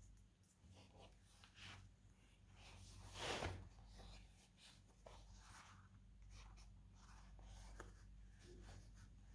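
Faint rustling and rubbing of stiff leather pieces being handled and folded, with a few small clicks and one louder brushing rustle about three seconds in.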